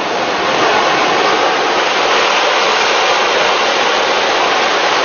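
Landslide of rock and debris pouring down a mountainside, a steady rushing roar without distinct impacts.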